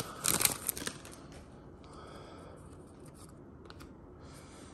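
A trading-card pack's plastic wrapper torn open and crinkled during the first second, then faint rustling and light ticks as the cards are handled.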